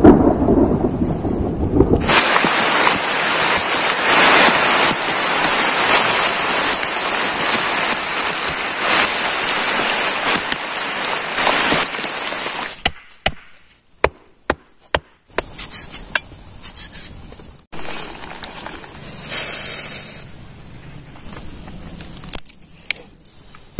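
A low thunder rumble at the start, then heavy tropical rain pouring with a dense, steady hiss. About 13 seconds in the downpour cuts off suddenly, giving way to quieter, uneven rain with scattered sharp taps and a brief swell of rain near 20 seconds.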